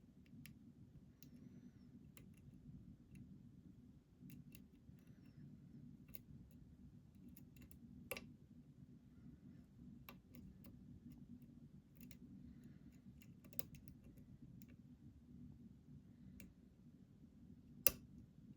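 Faint, irregular metallic clicks of a hook pick setting pin stacks in a challenge lock's cylinder, with a louder click near the end as the lock opens. A steady low hum sits underneath.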